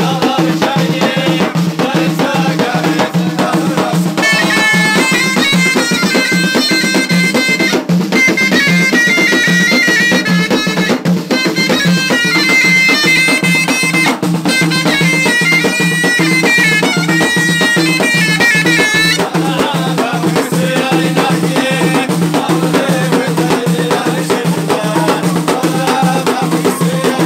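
Moroccan ghaita (rhaita shawm) playing a loud reedy melody over fast frame-drum beating, from about four seconds in to about nineteen seconds in. Before and after the ghaita passage, men sing together over the same drumming.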